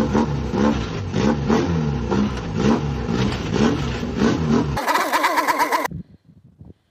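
A car engine revving up and down over and over. About five seconds in it gives way to a brief, higher warbling sound, and it is near quiet for the last second.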